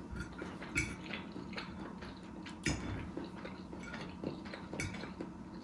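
Eating sounds: a fork clinking and scraping against a plate of spaghetti, a few short light clicks spread over several seconds.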